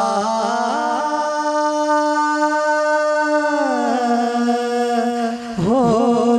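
A man singing a naat (Urdu devotional song) into a microphone, holding one long drawn-out note with small steps in pitch that sinks lower about three and a half seconds in. A new sung phrase starts near the end.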